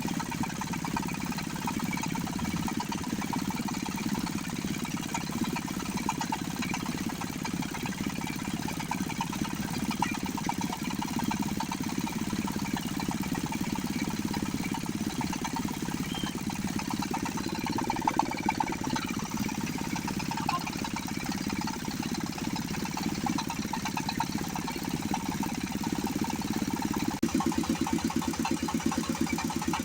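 A machine's motor running steadily. Near the end it changes to a faster, evenly pulsing chug.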